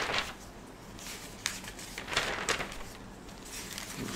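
Newspaper pages being handled and turned: several short paper rustles and crinkles.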